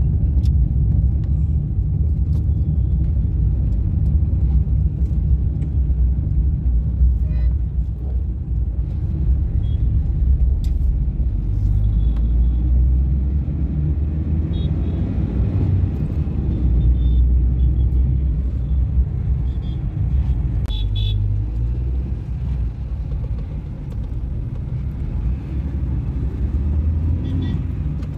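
Steady low rumble of a car driving through town traffic, heard from inside the cabin, with a few short horn toots from the traffic around it.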